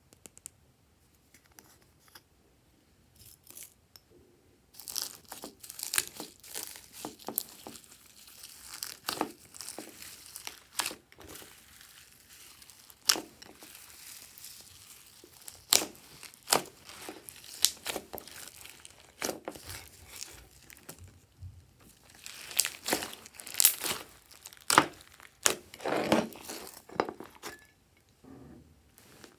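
Glossy slime being stretched, folded and squeezed by hand: a dense run of sticky crackles and small air-bubble pops. It starts about five seconds in, lets up briefly about two-thirds of the way through, picks up again, then dies away near the end.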